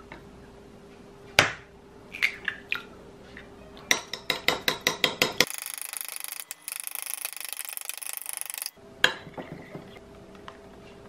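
A kitchen knife knocking on a wooden cutting board while slicing green onions: a few separate cuts, then a quick run of about eight chops a second. Then a spoon beating eggs in a glass bowl, a fast continuous clinking and scraping for about three seconds, followed by one sharp knock.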